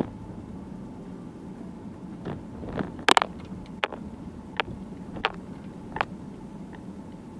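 Car interior noise while driving: steady engine and tyre noise. Several short sharp clicks and knocks sound over it between about two and six seconds in, the loudest a quick cluster about three seconds in.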